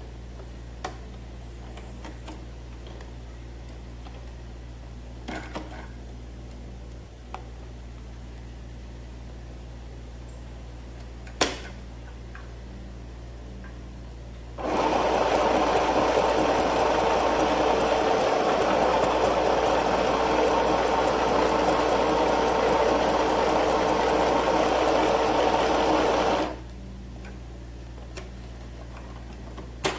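Sewing machine running steadily for about twelve seconds as it stitches a seam in cloth, starting about halfway in and stopping suddenly a few seconds before the end. A single sharp click comes shortly before it starts.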